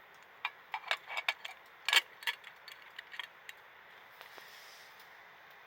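Titanium cup of water heating over an alcohol burner, ticking and clicking irregularly, about a dozen sharp ticks over three seconds, the loudest about two seconds in, as the first bubbles form at the bottom before the boil.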